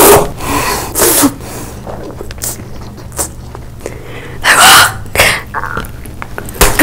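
A person slurping noodles loudly, twice in the first second or so, then short sharp breathy mouth sounds about four and a half seconds in, and a bite into a food near the end.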